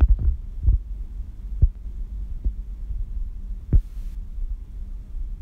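Chopped onions frying in oil in an open pressure cooker: a steady low hum with a few soft, scattered pops.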